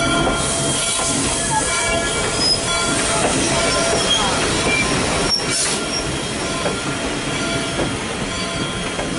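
Passenger coaches rolling past on the track, their steel wheels running on the rails with a steady squeal. A sharp click comes about halfway through.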